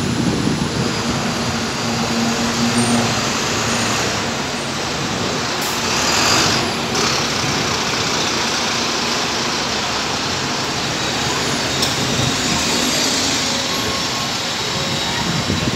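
London double-decker bus engines running as the buses pull past and away, with a steady low hum for the first few seconds and a short hiss about six seconds in.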